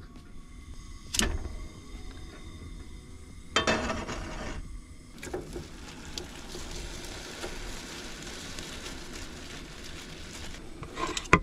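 Teriyaki-marinated chicken pieces going into a hot frying pan on a propane camp stove and sizzling steadily, the sizzle settling in about halfway through. A sharp click comes about a second in, and a short clatter around three and a half seconds in.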